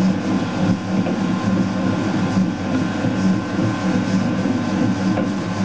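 Commercial planetary mixer running steadily, kneading pasta dough in its steel bowl: an even motor hum with the churn of the dough.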